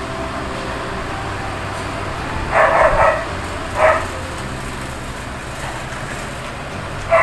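A dog's short yelps, one about two and a half seconds in, another a second later and a third near the end, over a steady background hum.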